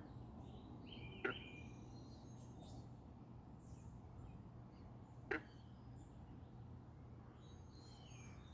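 Quiet outdoor background with faint, scattered bird chirps, and two short sharp sounds, about a second in and about five seconds in.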